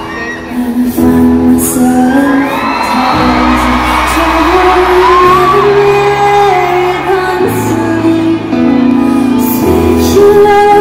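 A slow ballad sung live by a woman over held keyboard chords, amplified through an arena sound system, with her voice sliding between long notes.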